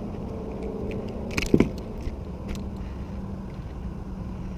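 Two quick, sharp knocks about one and a half seconds in, from a fishing rod being handled and set down on a plastic kayak. Under them runs a steady low rumble with a faint steady hum.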